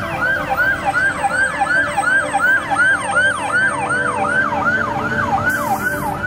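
Fire engine's siren on yelp: a fast, repeating rising-and-falling wail, close to three sweeps a second, over the low rumble of the truck's engine.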